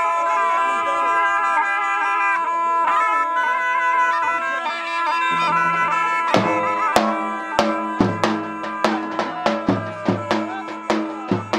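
A curle (Albanian shawm, a zurna) playing a reedy melody over a held drone note. About six seconds in, a lodra (large double-headed drum) joins with strong, regular beats.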